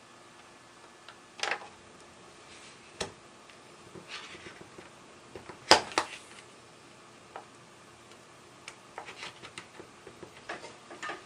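A knife scoring the curved edge of a hard plastic Belkin iPad 2 back case: irregular short scrapes and clicks. The sharpest pair comes about halfway through, and a quicker run of small clicks follows near the end.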